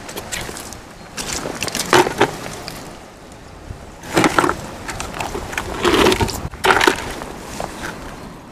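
Clam shells clicking and clattering against each other and the pebbles in three short bursts as clams are handled over a plastic bucket of clams.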